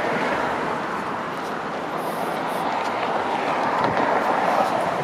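Steady rushing noise of road traffic, swelling slightly about four seconds in.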